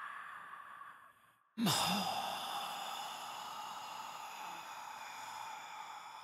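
Breathy, unvoiced whispering: a long whispered breath fades out about a second and a half in, and after a brief silence a new one starts abruptly and slowly trails off.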